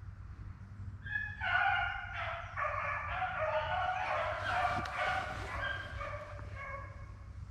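A pack of rabbit hounds baying together as they run a rabbit's trail, several voices overlapping. It starts about a second in and fades near the end.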